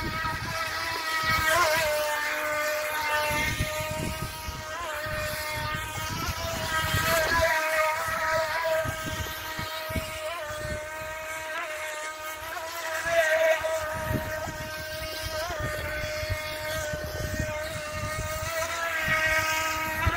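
Radio-controlled model speedboat's electric motor whining steadily at a high pitch, the whine wavering and swelling a few times as the throttle changes, with wind buffeting on the microphone.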